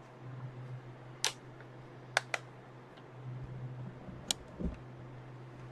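Several sharp clicks and a few soft knocks from handling hardware at a workbench, over a steady low hum.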